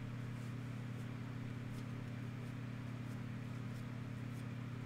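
Steady low electrical hum, with a few faint, soft rustles of trading cards being slid off the top of a stack by hand.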